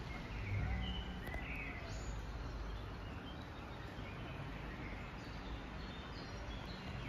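City ambience in the rain: a steady hiss of rain and wind over a low traffic rumble, with short bird chirps now and then, most in the first two seconds and again near the end.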